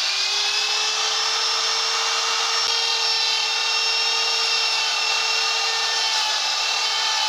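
Electric die grinder running at a steady high whine, its homemade carving bit grinding into the wood.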